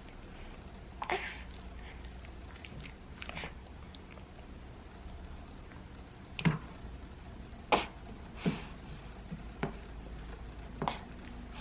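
A baby's mouth smacking while taking pear juice: about seven separate short, wet smacks, the loudest coming from about six seconds in.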